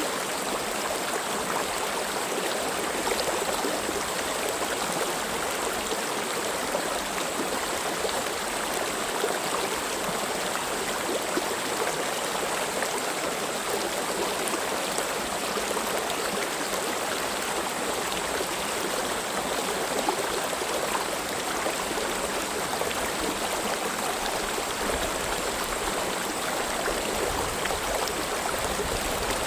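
Valley stream flowing, a steady continuous rush of water with no pauses.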